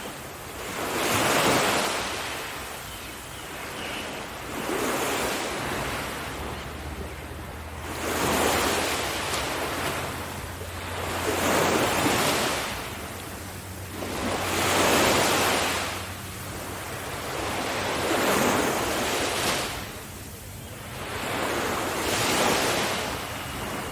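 Ocean surf: waves breaking and washing up a beach, swelling into a surge about every three to four seconds and falling back between.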